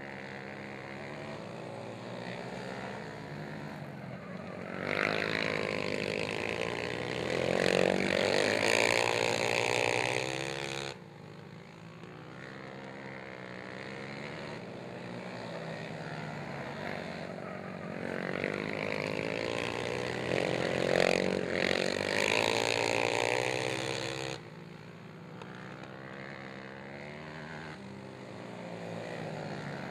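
Racing ATV (quad) engines revving hard around a dirt flat track, pitch rising and falling through the turns. The sound swells loud twice for several seconds as quads pass close, then drops back to a more distant whine.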